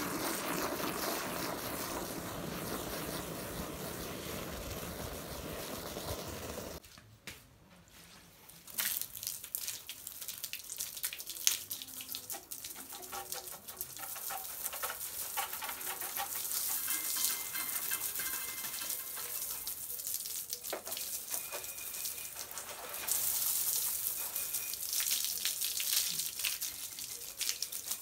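Water sloshing as a hand stirs soapy water in a plastic bucket, then, after a short break, water splashing and dripping, ending with a garden hose spraying onto a motorcycle, louder near the end.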